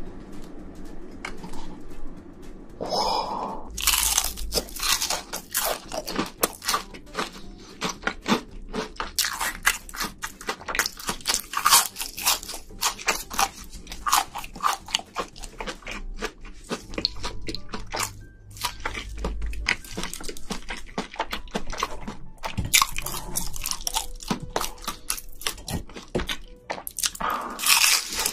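Close-miked crunching and chewing of battered deep-fried giant shrimp: irregular crisp crackles as the fried coating is bitten and chewed.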